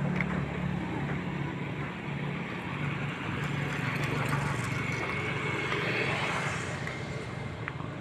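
Road traffic: a steady low vehicle engine hum with general road noise.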